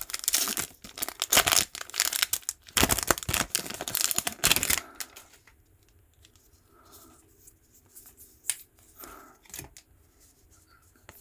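A Commander Legends booster pack's foil wrapper being torn open and crinkled, loud and crackly for about the first five seconds. After that come softer rustles and a few light clicks as the cards are handled.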